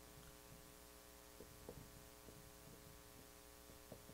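Near silence with a steady electrical hum, broken by faint short ticks and squeaks from a marker writing on a whiteboard.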